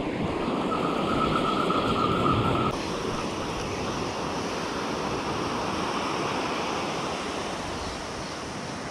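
Ocean surf rushing steadily, with wind buffeting the microphone.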